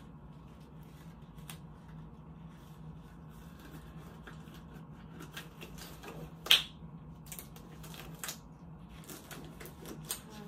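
Sterile gloves being pulled on and worked over the fingers: scattered rubbery rustles and small snaps, with one loud sharp snap a little past halfway, over a steady low hum.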